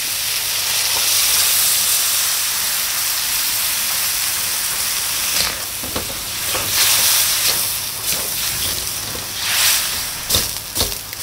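Stainless steel wok of fermented wild boar meat hissing and sizzling steadily after a splash of water is poured into the hot pan. From about halfway, a spatula scrapes and knocks against the wok several times as the meat is stirred.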